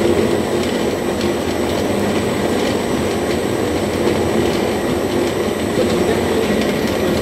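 Food processor running steadily at high speed, its blade churning fish surimi paste.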